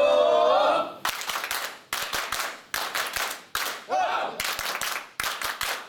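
A group of people clapping together in short rhythmic runs with brief pauses between them. A voice calls out at the start and again about four seconds in.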